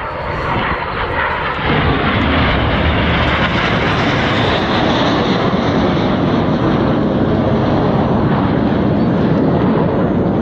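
Red Arrows BAE Hawk T1 jets, each with a single Rolls-Royce Turbomeca Adour turbofan, passing overhead in formation. The jet noise swells about two seconds in and then stays steady and loud.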